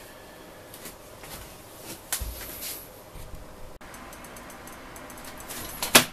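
Faint steady room noise, with a short knock about two seconds in and a sharp click near the end.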